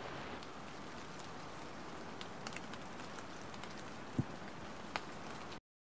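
Rain recording: a steady patter of rain with scattered louder drops, cutting off abruptly near the end.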